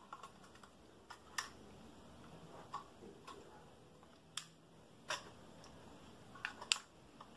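Irregular sharp plastic clicks and light knocks from an Eachine EX4 folding drone being handled, its arms swung open and snapping into place; about eight clicks spread out, the loudest near the end.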